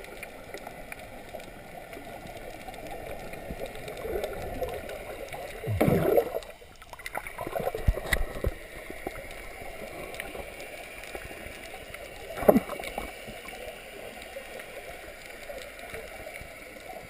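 Muffled underwater water noise picked up through a GoPro's waterproof housing, with a few brief louder bursts around six, eight and twelve seconds in.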